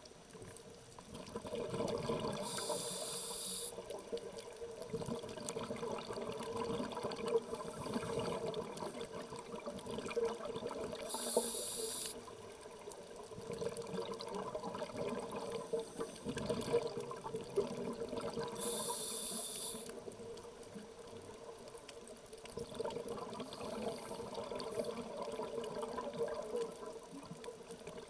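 Scuba diver breathing through a regulator underwater: three short hissing inhales, each followed by several seconds of bubbling exhale.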